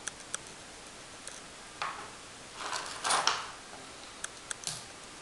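Spent brass cartridge cases clicking against each other and a plastic tray as they are picked through and sorted by hand: scattered single clicks, with a short burst of rattling about three seconds in.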